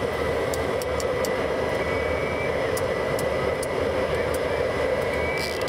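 Boeing 707's Pratt & Whitney JT3D-7D turbofan engines running steadily on the ground, heard from inside the cockpit: a continuous rush with a thin steady whine above it, and a few faint scattered clicks.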